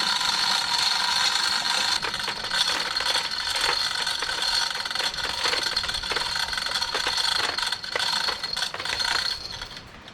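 A ratchet strap being worked and handled: irregular metallic clicks and rattles, over a steady high-pitched hum.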